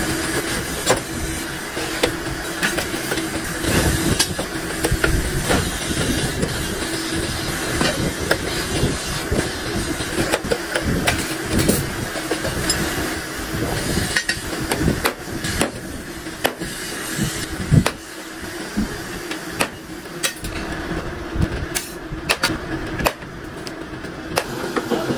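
Irregular hammer knocks on a stainless steel sheet, with the loudest single knock a little past halfway, over continuous workshop noise and a steady hum that fades about two thirds of the way through.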